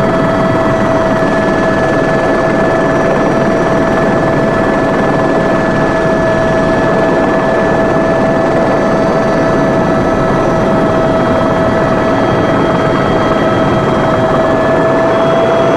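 Helicopter noise heard from inside the aircraft: a steady rush of engine and rotor sound with a constant whine over it.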